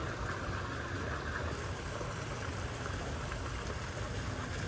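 Steady rushing of running water with a low rumble underneath.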